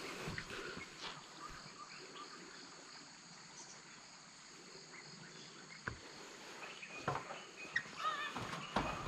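Insects in the riverside jungle keeping up a steady, high, thin drone, with a couple of faint knocks past the middle and a few short chirps near the end.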